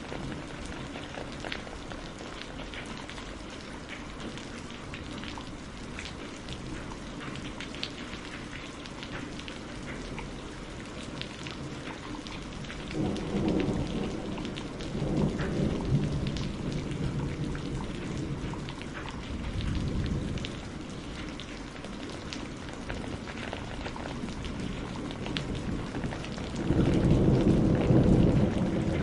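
Steady rain falling, with scattered drops ticking, and thunder rumbling in several low rolls from about halfway through, the loudest near the end.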